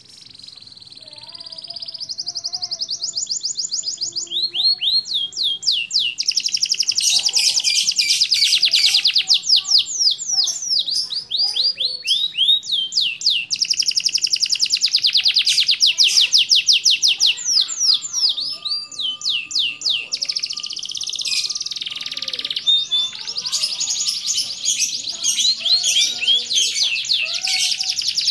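Canary, a Spanish Timbrado × Scotch Fancy cross, singing a long, loud, continuous song of rapid trills and rolling phrases, building up in loudness over the first few seconds.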